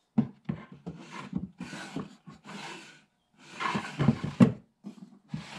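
Wooden drawers of an eight-drawer wood machinist's tool chest being slid in and out, wood rubbing on wood in short scrapes, with a sharp knock about four and a half seconds in as a drawer bumps home.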